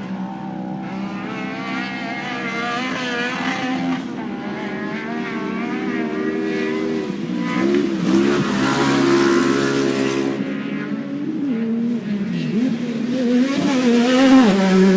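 Off-road race car engines revving and passing, their pitch rising and falling as they accelerate and lift, growing louder toward the end, over a steady low hum.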